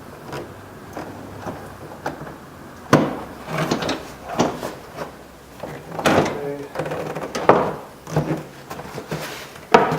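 Plastic door trim panel being worked back onto a minivan's front door: a string of knocks, clunks and scrapes as it is pushed and shifted into place.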